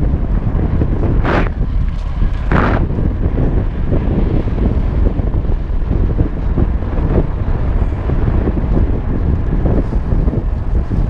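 Wind buffeting the microphone of a camera riding on a moving mountain bike: a steady low rumble, with two short louder puffs in the first three seconds.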